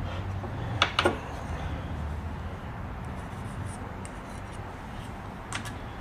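Small metal sewing-machine parts clicking as they are handled: two quick light clicks about a second in and another near the end, over a steady low hum.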